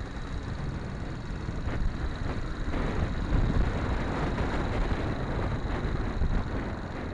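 Yamaha XT250 single-cylinder four-stroke engine running as the bike rides along, with wind rushing over the handlebar-mounted camera's microphone.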